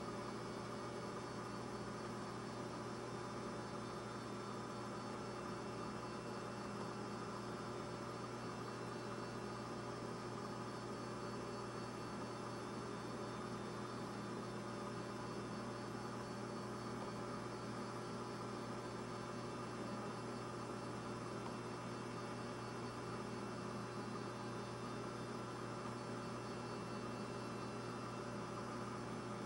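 Steady electrical hum, a buzz of several fixed tones over a faint hiss, with nothing else happening.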